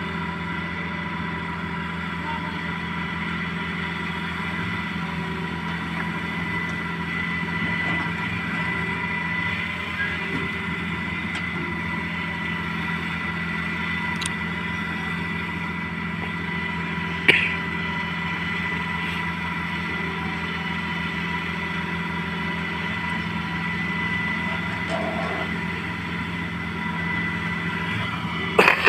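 Excavator diesel engine running at a steady speed, with a constant whine over the engine note and two sharp metallic clanks, one about two-thirds of the way through and one near the end.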